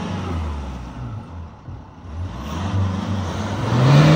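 Mitsubishi L200 pickup's engine running at low revs while crawling through deep mud, then revving up hard about three and a half seconds in as the truck pushes over a mud lip.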